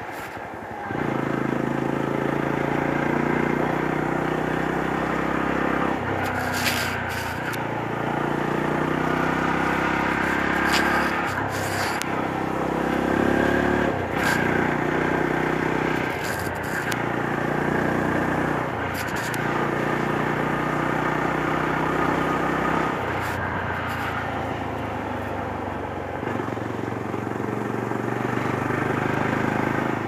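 Yezdi Roadster's 334 cc single-cylinder engine and exhaust running as the motorcycle is ridden through a string of bends. The engine note changes in steps every few seconds as the throttle is eased off and opened again, with a few brief crackles over the top.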